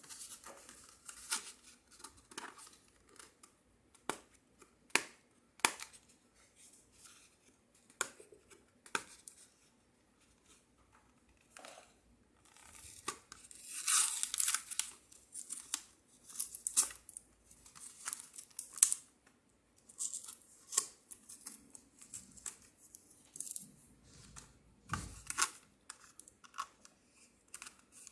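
Hands handling and opening the RAM kit's plastic packaging: scattered clicks, crinkles and tearing rustles. The busiest stretch comes about halfway through, and there is a low thump near the end.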